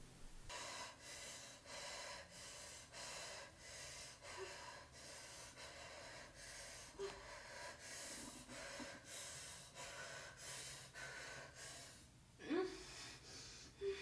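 A woman's quick, rhythmic gasping breaths, about two or three a second, with a louder voiced gasp near the end.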